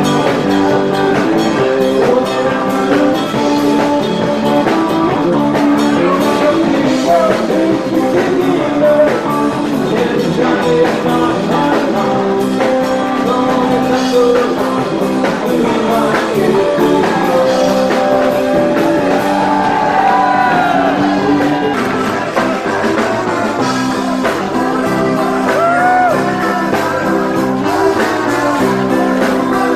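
A German Oktoberfest party band playing live through a PA, with electric guitar, drum kit and female singing.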